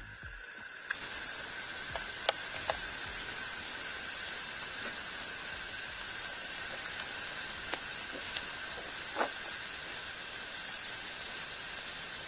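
Ground-beef patties sizzling in hot oil in a black pan: a steady hiss that starts about a second in, with scattered pops and crackles.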